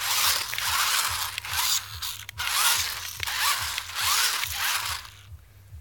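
Homemade four-wheel-drive remote-control truck's electric drive motors and gearboxes buzzing and rasping in repeated bursts as it is driven back and forth, falling away about five seconds in.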